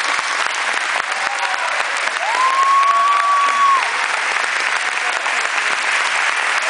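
Audience applauding, a dense, steady clapping, with one long held whistle about two seconds in, lasting about a second and a half.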